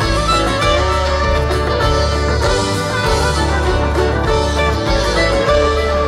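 Live jamgrass string band playing an extended jam, with fiddle and guitar over a steady bass line, heard through the stage PA from out in the crowd.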